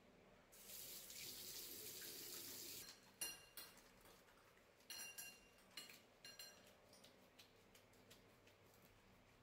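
A bathroom washbasin tap running faintly for about two seconds as hands are wetted under it, then shut off. After that come soft, irregular wet clicks and squelches of soapy hands being rubbed together.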